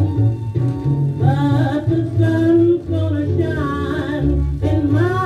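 A 1938 small-band blues recording played from a 78 rpm shellac record: a jazz band with a steady bass line under a wavering lead melody.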